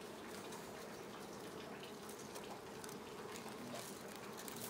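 Faint rustling and light crackling of dried pipe grass stalks being handled and bound into a hand broom, with a few small clicks in the second half.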